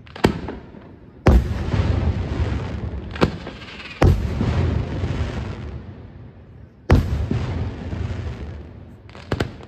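Aerial firework shells bursting overhead: about seven sharp bangs at uneven intervals, each of the loudest trailed by a long rolling rumble, with a quick double bang near the end.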